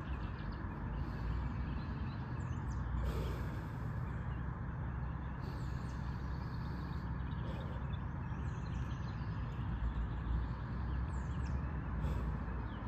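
Steady low outdoor rumble, like distant traffic, with a few faint bird chirps.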